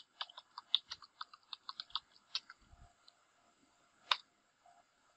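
Computer keyboard typing: a quick run of keystrokes for about three seconds, then a single louder key press about a second later.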